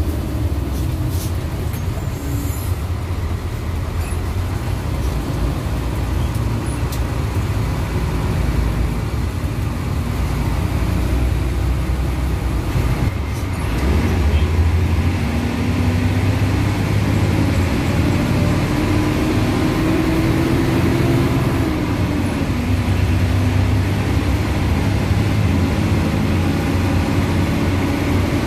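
Diesel intercity bus running on the road: a steady low engine rumble with road noise. The engine note climbs as the bus gathers speed, drops back about three-quarters of the way through, then climbs again.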